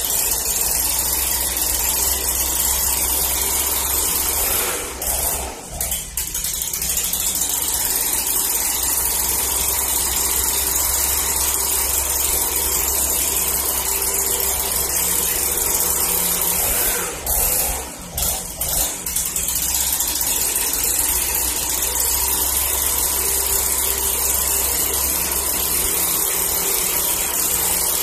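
Stihl BG 65 leaf blower's two-stroke engine running steadily with the fan air rushing, during adjustment of the carburetor's high-speed screw. The sound dips briefly twice, about five seconds in and again about seventeen seconds in.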